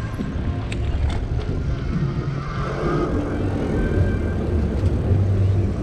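Steady low rumble of riding a Lectric XP e-bike: tyre and wind noise while moving along.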